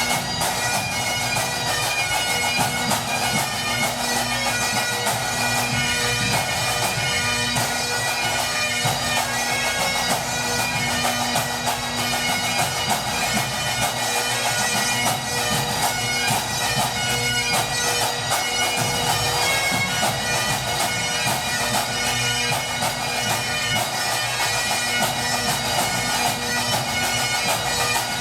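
Great Highland bagpipes playing a fast tune over their steady, unbroken drones.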